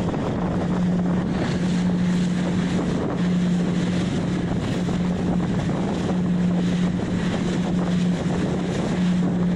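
Wind buffeting the microphone and water rushing past a fast-moving motorboat, over the boat's steady low engine hum.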